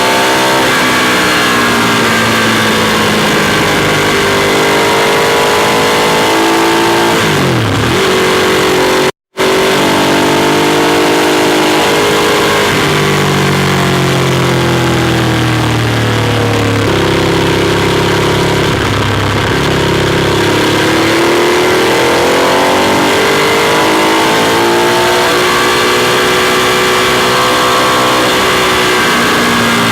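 Ducati Monster 821's Testastretta L-twin engine under way, its pitch rising and falling with throttle and gear changes. Revs drop sharply around seven seconds in, the sound cuts out for a split second about nine seconds in, then holds lower and steadier before climbing again in the last part.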